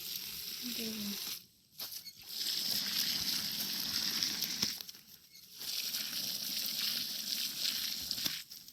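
Water spraying onto garden plants while they are watered, in three spells of a few seconds each with short breaks between.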